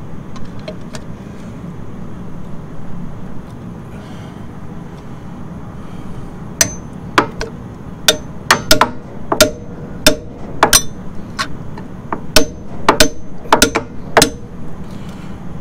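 A hammer strikes a hub-cap wrench again and again to break loose an oil bath hub cap that was put on far too tight. About fifteen sharp, irregularly spaced blows with a short metallic ring begin about six seconds in.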